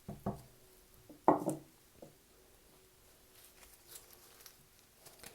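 A few brief knocks and clinks of a spoon and kitchenware being handled, the loudest a little over a second in with a short ring, then faint light handling sounds.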